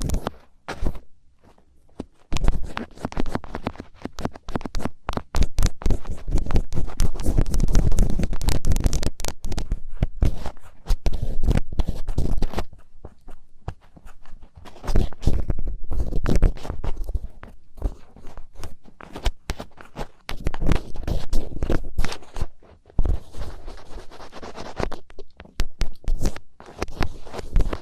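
Thin ear pick scraping and scratching in ASMR ear cleaning: dense crackling scratches close to the microphone, easing off briefly about two seconds in, around thirteen seconds and near twenty-three seconds.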